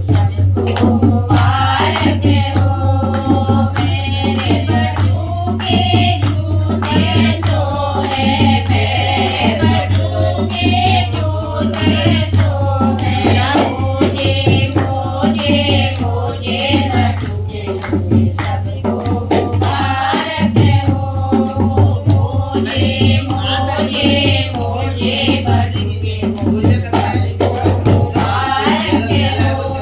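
Kumauni badhai geet, a celebratory folk song for a janeu ceremony: singing over a steady drum beat.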